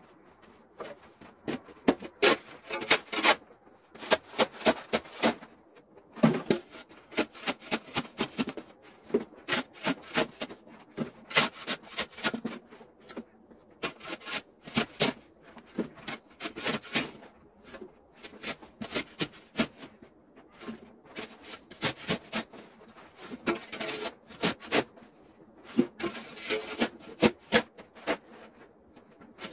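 Metal snow shovel scraping and scooping packed snow: runs of quick, sharp scrapes and crunches with short pauses between them.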